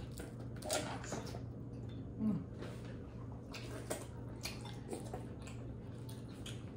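Close-up eating sounds from a Cajun seafood boil: wet chewing, squishing and scattered smacking clicks, over a steady low hum. A short voiced 'mm' comes about two seconds in.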